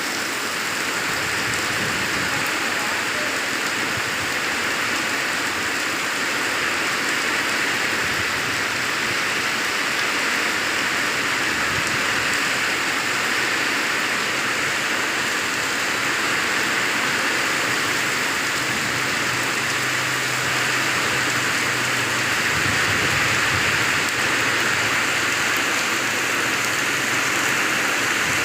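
Steady heavy rain pouring down in an even hiss, with a low rumble underneath now and then.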